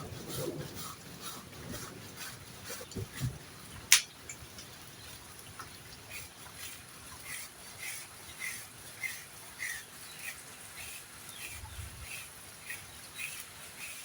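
Poultry peeping: short high calls repeated about twice a second through the second half, with a single sharp click about four seconds in.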